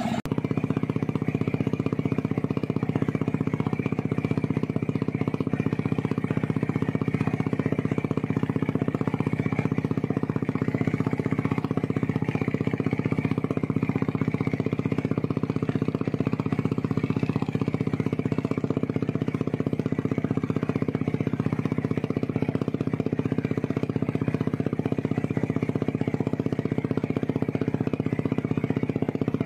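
Motorboat engine running steadily under way, a constant low drone with a fast, even pulse.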